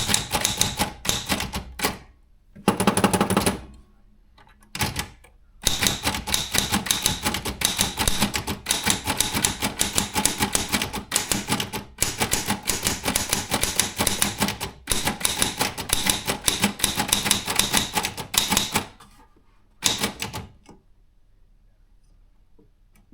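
Brother Chevron / Olympia B12 typewriter being typed on quickly: rapid runs of key strikes clacking against the platen, several a second, broken by short pauses. About three seconds in there is a longer, denser rattle. The typing stops near the end.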